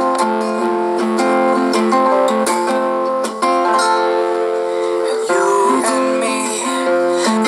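Acoustic guitar with a capo on the neck, playing a chord pattern on its own with no singing.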